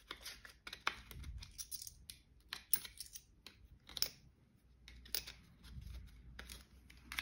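Banknotes and cash envelopes being handled: irregular rustling with light clicks and taps.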